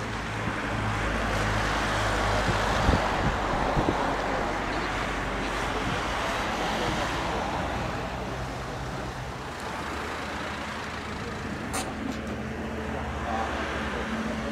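Steady roar of road traffic and engines, swelling over the first few seconds, with a few light knocks around three to four seconds in and a sharp click near the end.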